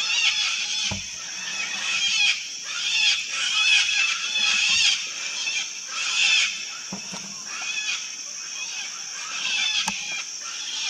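A flock of sulphur-crested cockatoos screeching, many harsh calls overlapping one another without pause. A steady high-pitched drone runs underneath.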